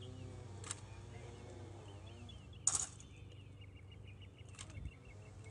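Three sharp slaps of a drill team's hands striking their rifles in unison during silent rifle drill, about two seconds apart, the middle one loudest. Birds chirp faintly underneath.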